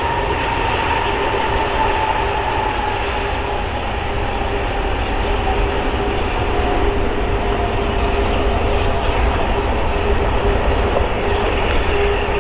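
Airbus A380-841's four Rolls-Royce Trent 970 turbofans running as the airliner rolls out on the runway after landing: a steady jet roar with a whine slowly falling in pitch as the engines spool down.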